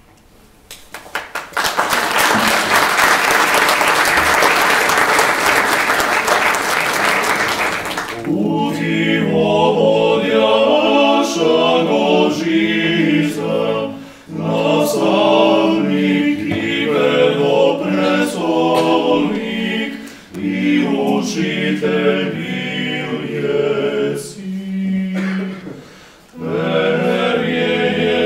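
Audience applause for about six seconds, then a male a cappella vocal group of five singers sings in phrases separated by short breaths.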